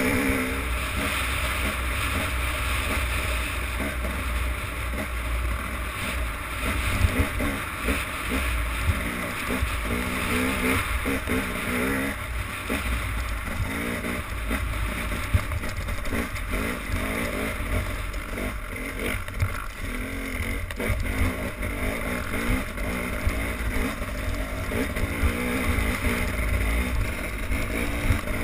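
Motorboat engine running steadily, with wind rumbling on the microphone.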